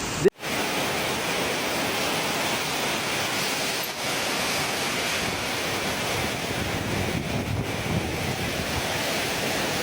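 Steady rushing noise of water, which sets in after a brief break in the sound just at the start.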